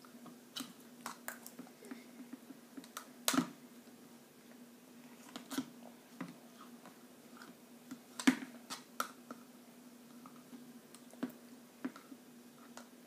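A small spoon clicking and scraping against a pudding cup, with a few louder knocks of the cup against the high-chair tray, over a faint steady hum.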